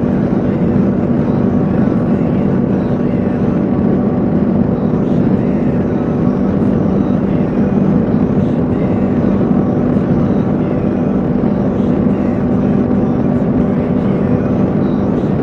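Kawasaki KLR 650's single-cylinder engine running steadily at highway cruising speed, with wind rush over the helmet-mounted microphone.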